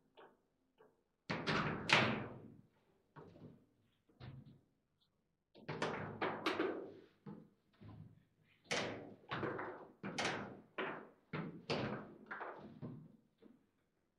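Table football in play: a string of sharp knocks and thuds as the ball is struck by the plastic figures and hits the table walls and the rods bang against their stops. The loudest cluster comes about two seconds in, another dense run comes around six seconds, and single knocks follow every half second or so to the end.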